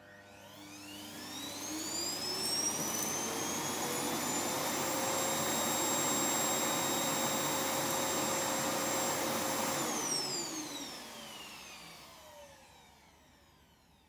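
iRobot Roomba S9+ Clean Base auto-empty dock's suction motor emptying the robot's bin: a rush of air with a whine that rises over the first few seconds, holds steady, then winds down from about ten seconds in. A short electronic tone sounds right at the start.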